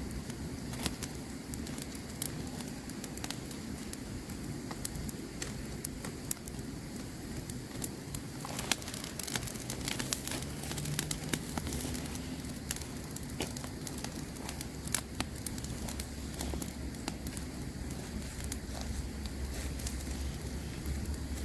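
Campfire crackling, with irregular sharp pops and snaps over a steady low noise from the fire. A low steady rumble comes in about halfway through.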